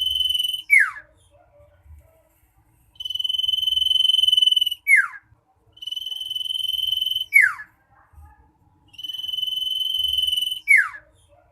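Common iora (cipoh) singing: a long, held high whistle of about two seconds that ends in a quick downward-slurred note. The phrase repeats about every three seconds, with the tail of one phrase at the start and three full phrases after it.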